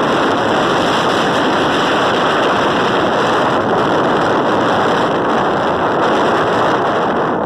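Heavy wind buffeting the microphone: a loud, steady rush of noise with no distinct engine note or other sound standing out.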